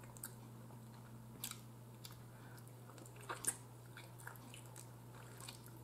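A person chewing steamed chicken with the mouth closed: faint wet mouth smacks and a few soft clicks, the clearest about a second and a half in and again a little past three seconds.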